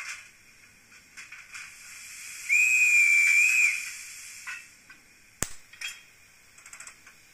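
Steam whistle played by the LokSound 5 sound decoder of a Fleischmann BR 03 model steam locomotive: one whistle of a little over a second over a faint steady hiss of steam, its pitch dipping slightly in the middle. A single sharp click follows about two-thirds of the way in.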